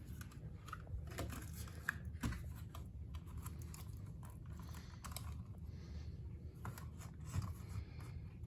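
Faint handling noise of a plastic smoke alarm being turned over and readied by hand: scattered light clicks and rustles, with a couple of slightly louder clicks about a second and two seconds in and again near seven and a half seconds.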